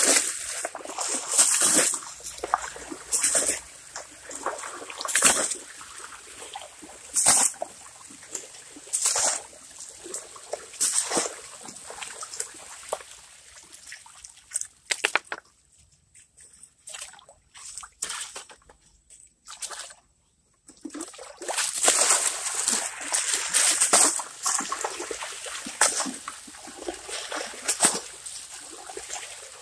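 Water thrown by the panful onto a sluice carpet on a gravel slope, splashing about every two seconds, with water trickling down over the carpet and gravel between throws. A longer run of heavy splashing comes a little past the middle. This is gold-bearing gravel being washed over a sluice carpet.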